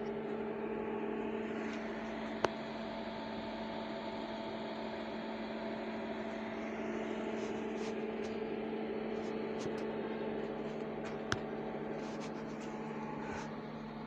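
Steady electrical hum with a faint hiss from a switched-on Stranger PBT-701 power amplifier, with two brief clicks.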